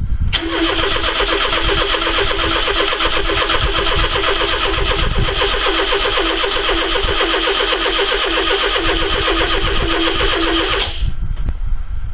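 Starter motor of a 1981 Ford Cortina MK5 cranking the engine for about ten seconds in an even, rhythmic chug with a steady whine, then cutting off without the engine catching. The engine is hard to start after sitting unused for months.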